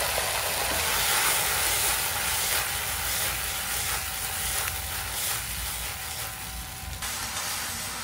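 Onions sizzling as they fry in oil in a pot, a steady hiss that eases a little toward the end.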